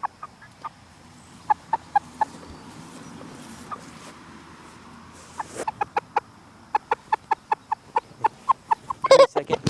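Chickens clucking: a few scattered short clucks, then from about halfway a quick, even run of clucks, about four a second, growing louder near the end.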